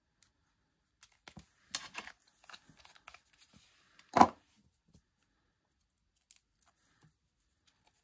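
A small paper strip rustling and crinkling between the fingers while liquid glue is dabbed on it, with a few small clicks. A little past the middle comes one short, sharp knock, the loudest sound.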